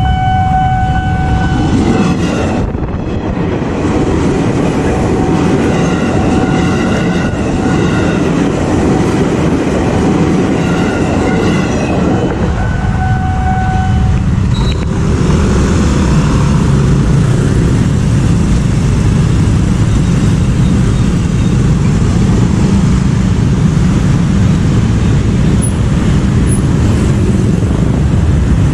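A level-crossing warning alarm rings as a steady, repeating tone and stops about halfway through, over the rumble of a KRL electric commuter train. In the second half, motorcycle and car traffic moves across the crossing.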